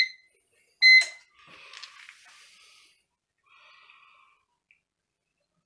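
CyberPower 1500VA UPS beeping as it powers up on mains: two short, high-pitched beeps about a second apart.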